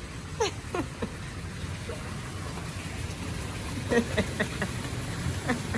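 Steady background hiss with a few brief, faint voices.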